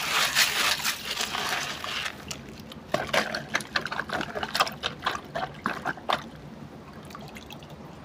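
Wet gravel crunching and rattling as a hand digs through a toy dump truck's load, then a small plastic toy truck swished through shallow puddle water with splashing and dripping that dies down near the end.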